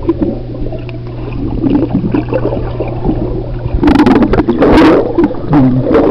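Muffled underwater sound from a camera submerged in a swimming pool: water movement and bubbling over a steady low hum, then a louder rush of bubbles and splashing about four seconds in as a swimmer comes right up against the camera.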